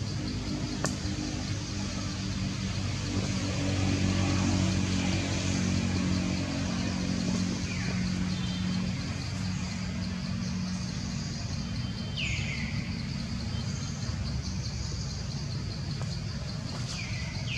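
A passing motor vehicle's engine hum, growing louder about four seconds in and then easing off. Two short bird calls sliding down in pitch come in the second half.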